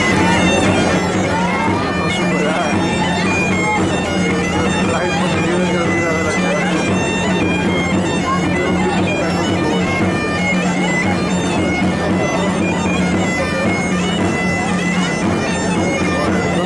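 Bagpipe music: a steady drone under a piping melody.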